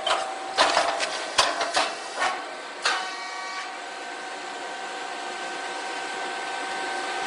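A grain-puffing chip machine working through a cycle. A few sharp knocks and clatters in the first three seconds as the puffed cakes are ejected, then a steady machine hum with a held whine while the closed molds bake the next charge.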